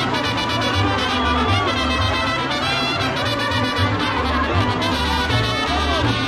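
Purépecha brass band playing, trumpets and trombones over a low bass line that moves in steady steps.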